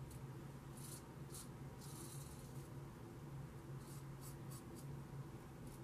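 Ming Shi 2000S adjustable double-edge safety razor scraping through lathered stubble in short strokes: about eight faint, crackly rasps, one longer stroke about two seconds in, over a steady low hum.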